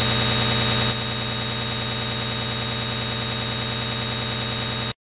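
Steady electronic glitch drone: a dense buzzing hum with a high, steady whine on top. It steps slightly quieter about a second in and cuts off suddenly near the end.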